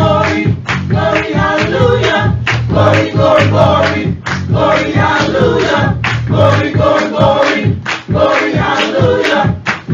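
Small gospel choir singing together with electric keyboard accompaniment and hand claps on the beat.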